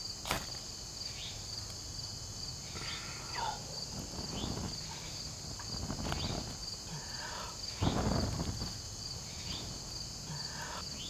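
A steady high insect chorus in the woods, with short chirps over it, while dry leaf tinder is handled and lit in a stone fire ring: soft rustling, and a louder rush of noise about eight seconds in.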